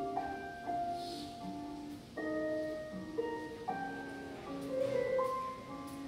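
Music: a gentle melody of bell-like keyboard notes and chords.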